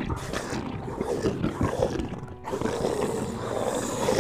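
Horror-style intro sound effect: a long, rough, animal-like roar that continues with a brief dip about two and a half seconds in.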